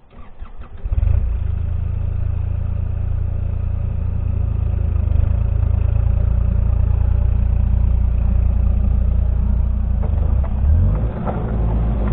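Excavator's diesel engine cranking and catching about a second in, then running steadily, with a brief shift in its note around ten seconds in.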